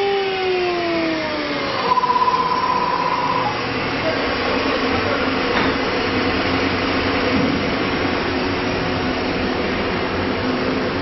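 CNC router spindle winding down, its whine falling in pitch over the first second and a half. A short pulsing buzz follows about two seconds in, then a steady machine hum and rush of air.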